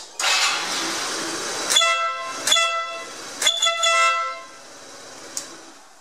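Stebel Nautilus compact electric air horn sounding on a scooter, running off the original horn wires. It hisses for about a second and a half, then gives two short blasts of a steady car-horn-like tone about a second and a half apart.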